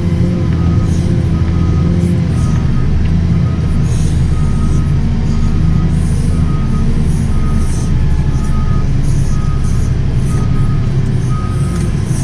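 JCB 435S wheel loader's diesel engine running steadily, heard from inside the cab, with its reversing alarm beeping about twice a second as the loader backs up.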